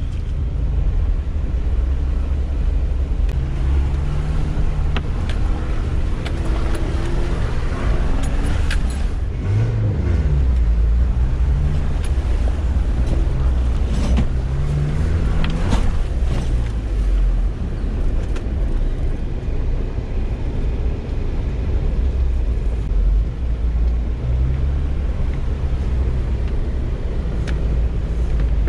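Off-road 4x4's engine heard from inside the cabin, a steady low rumble that revs up and down as it drives a muddy track, with a few sharp knocks along the way.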